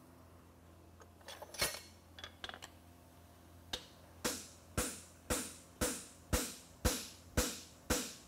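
Hammer blows on a handled fuller set in the groove of a red-hot steel horseshoe on the anvil, fullering the nail crease: a steady run of ringing metal strikes about two a second that begins about four seconds in. Before it, a few light clicks and taps of metal.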